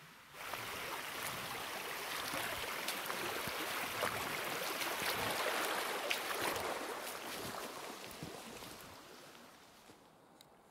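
Shallow creek water rushing close by as it is crossed on foot, with small splashes and clicks of steps, swelling and then fading away near the end.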